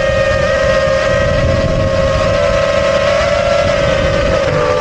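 FPV quadcopter's electric motors and propellers whining steadily in flight, the pitch wavering with throttle changes near the end, over a low rumble of wind on the onboard microphone.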